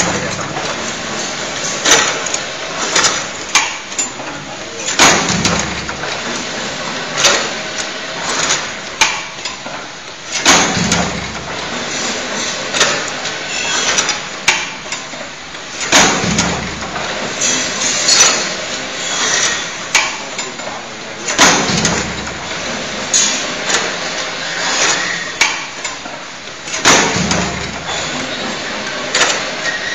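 Automatic wire hanger making machine running through its forming cycle, clanking and clicking as it bends the steel wire, with a heavier clank about every five and a half seconds.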